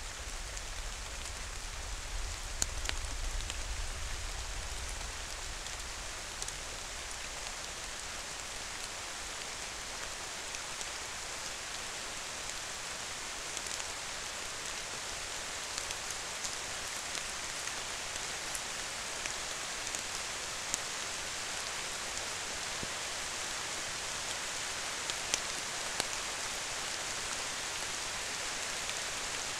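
Steady rain falling, with scattered drops ticking; a low rumble in the first few seconds.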